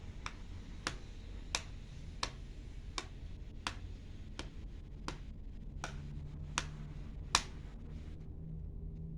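A series of about eleven sharp, evenly spaced clicks, roughly one every three-quarters of a second, which stop near the end.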